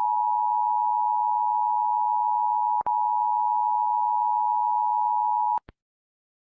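Emergency Alert System attention signal: a steady two-tone alarm, its two pitches close together just under 1 kHz, with a brief click-break a little under three seconds in, then cutting off abruptly about five and a half seconds in.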